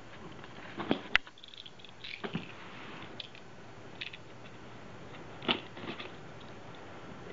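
Utility knife slitting the packing tape along a cardboard box's seams, with faint scratching and scattered clicks and taps of the blade and box; the sharpest come about a second in and again about five and a half seconds in.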